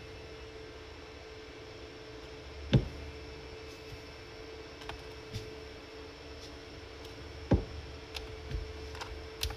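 Light clicks and knocks of a pocket knife being handled on a weighing scale, with two sharper knocks about 3 and 7.5 seconds in and a few small ticks near the end, over a faint steady hum.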